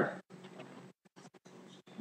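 Faint, soft rustling of trading cards and packs being handled, in short scattered bits.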